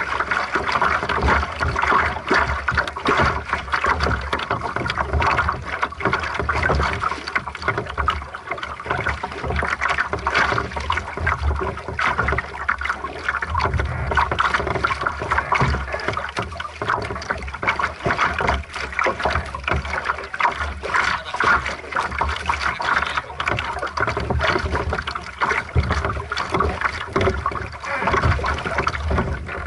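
Lake water splashing and gurgling against the hull of an aqu@muse sailing dinghy under sail, a continuous choppy wash of small irregular splashes over a low rumble.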